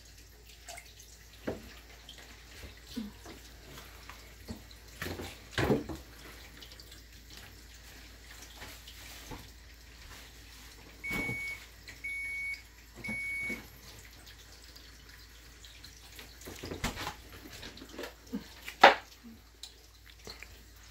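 Kitchen clatter: scattered knocks and clinks of utensils and dishes, with one sharp knock loudest near the end. About eleven seconds in, a kitchen appliance gives three short, evenly spaced electronic beeps.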